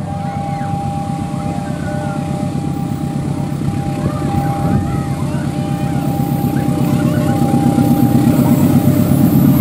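Diesel locomotive's engine rumbling as it approaches at the head of a freight train, growing steadily louder. A thin steady high tone runs over the rumble.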